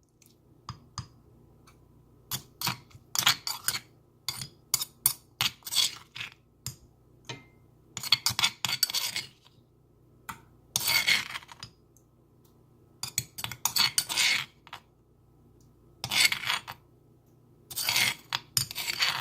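A spoon clinking and scraping against a pot and bowl, in repeated short clinks and several longer scrapes, as a sauce mixture is scraped into a pot.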